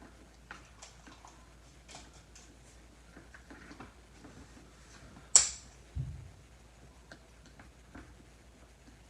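Scattered light clicks and taps from handling containers and a stirring utensil while slime is mixed, with one sharp click a little past five seconds in and a dull thump just after.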